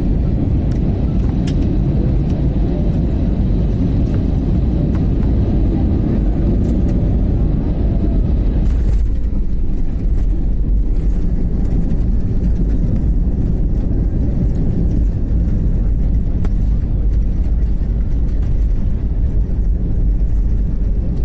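Cabin noise of a jet airliner landing: a steady, loud low rumble of engines and airflow. About nine seconds in, the sound changes as the wheels touch down, followed by runway rumble and scattered rattles during the rollout with the spoilers raised.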